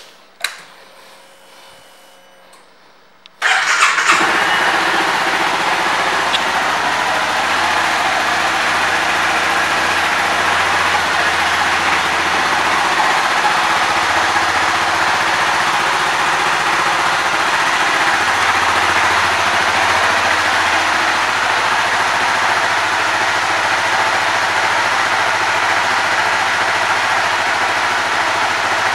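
2011 Honda CBR250R's single-cylinder engine starting about three and a half seconds in and then idling steadily.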